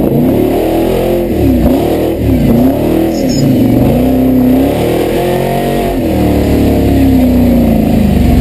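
Supercharged V8 engine of a Toyota Land Cruiser competition truck, heard from inside the cab, revving up and down under throttle. Its revs dip sharply and climb back three times in the first few seconds, then hold steadier and higher.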